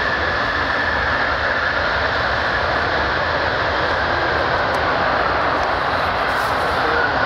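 Boeing C-17A Globemaster III's four Pratt & Whitney F117 turbofan engines running steadily on the ground as the aircraft moves along the runway: a constant jet roar with a steady high whine over it.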